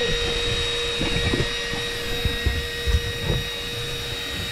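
A small motor whining steadily at one unchanging pitch, over a low rumble like wind on the microphone with scattered low knocks.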